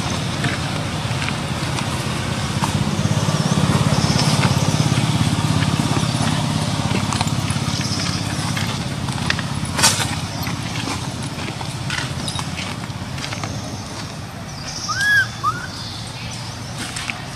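Outdoor background with a steady low rumble like a distant engine, swelling and fading in the first half. A sharp click comes about ten seconds in, and two short squeaky calls that rise and fall come near the end.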